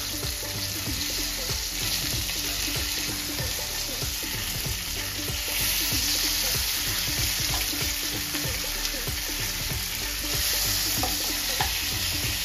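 Marinated pomfret sizzling and crackling in shallow hot oil in a frying pan, with a metal slotted spatula scraping and tapping as the fish are turned over.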